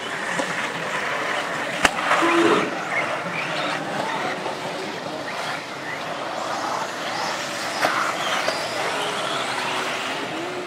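Electric 4WD RC off-road buggies racing on a dirt track: motor and gear whine rising and falling as they accelerate and brake, over tyre noise on the dirt. A sharp click comes just before two seconds in, and a short beep just after.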